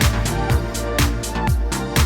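Background electronic dance music with a steady, driving beat of about two drum hits a second over a sustained bass line.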